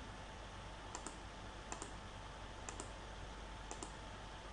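Computer mouse button clicking about once a second, each click a quick double tick of press and release, as sketch contours are picked one by one. Under it runs a faint steady hiss with a thin hum.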